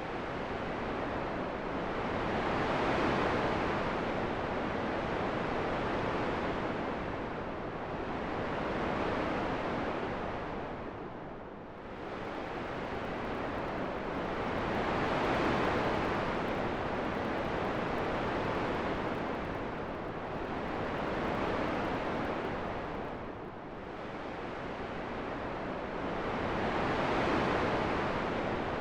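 Wind blowing in a steady rush that swells and eases in slow, even gusts about every six seconds.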